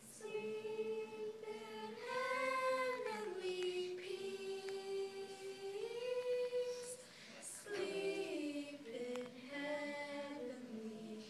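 A small group of women and children singing together in long held notes that glide from one pitch to the next.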